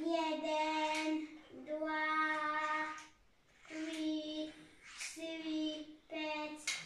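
A young child singing five long held notes in a row on about the same pitch, with short pauses between them.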